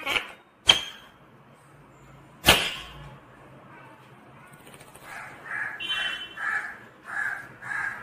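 Rose-ringed (Indian ringneck) parakeet making soft sounds: two sharp clicks in the first few seconds, then a run of soft, evenly spaced mutterings, about two a second, over the last three seconds.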